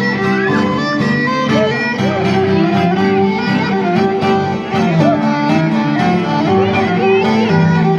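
Live band music led by a violin playing an ornamented melody with sliding notes, over steady sustained lower notes.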